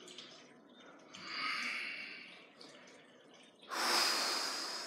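A man breathing hard through nose or mouth while stretching on his back: a softer breath about a second in, then a louder breath that starts suddenly near the end.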